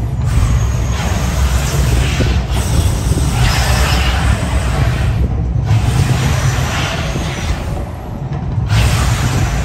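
Gas flame jets of the Mirage volcano show whooshing in repeated bursts, the biggest about three and a half seconds in, over a deep rumbling show soundtrack from loudspeakers. The rushing stops briefly twice, in the middle and near the end.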